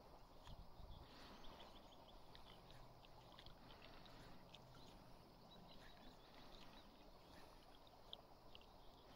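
Near silence: a faint outdoor hush of calm river water, broken by scattered short, faint high ticks.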